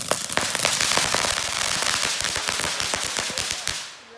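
Ground fountain firework spraying sparks: a steady hiss full of rapid small crackling pops, dying away near the end.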